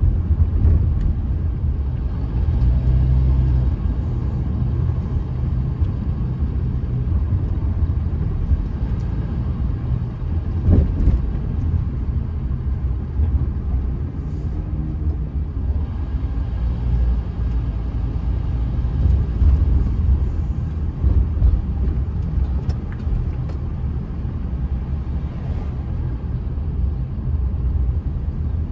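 Steady low rumble of a car driving on city streets, heard from inside the cabin: engine and tyre noise on the road surface. There is one brief louder knock about eleven seconds in.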